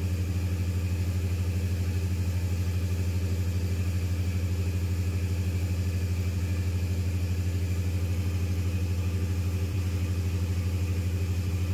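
Large natural gas generator engine running steadily under load, supplying about 300 kW to the grid: a deep, even drone with a fast, regular throb.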